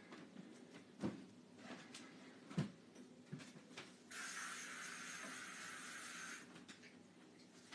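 A few faint knocks, then a steady hiss that starts about four seconds in and cuts off about two seconds later.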